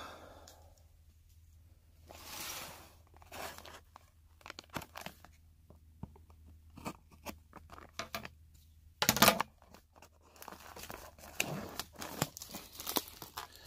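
Plastic shrink wrap on a cardboard card box being slit with a blade and torn off: crinkling plastic with scattered scrapes and clicks, and one louder rip about nine seconds in.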